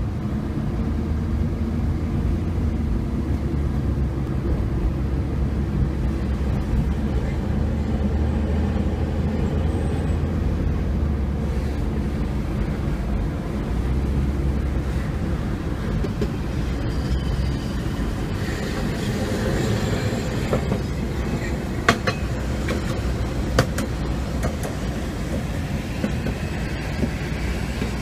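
Steady low rumble of road noise from inside a moving car, mixed with a Hankai tramcar running on the street track alongside. Two sharp clicks, a second and a half apart, come near the end.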